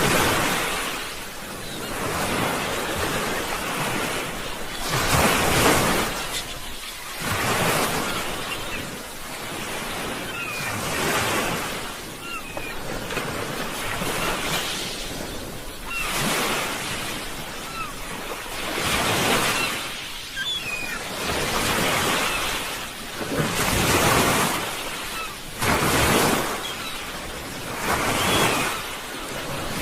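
Sea waves washing onto a shore, the surf swelling and falling back over and over, a surge about every two seconds.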